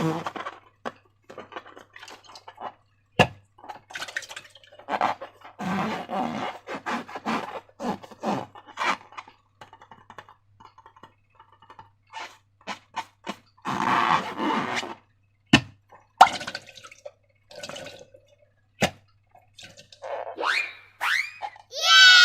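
Slime being squished and stretched, making wet squelches, plops and sharp sticky clicks in irregular bursts. Near the end comes a loud squeaky rubber squeal from a balloon that falls in pitch.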